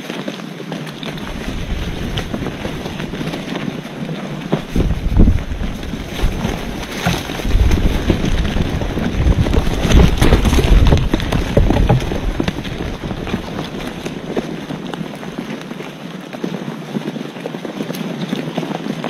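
Wind buffeting the microphone: a steady rushing noise with low rumbling gusts, loudest through the middle stretch.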